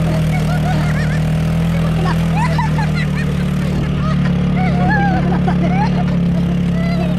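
An ATV engine running steadily as it tows riders over rough grass, with the riders laughing and shrieking over the engine noise.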